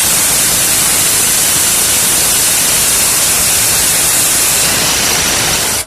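Loud, steady static-like hiss that starts and stops abruptly.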